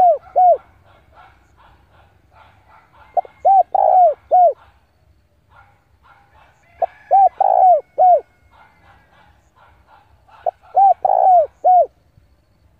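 Male spotted dove singing its cooing song: a phrase of three or four rounded coos, repeated about every three and a half seconds, with the tail of one phrase at the start and three full phrases after it. Faint chirping runs between the phrases.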